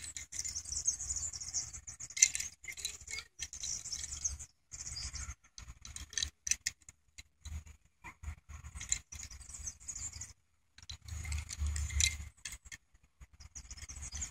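Light clicks and rattles of a small die-cast toy car being handled and turned over in the hand, over a low rumble and hiss that cut out briefly a few times.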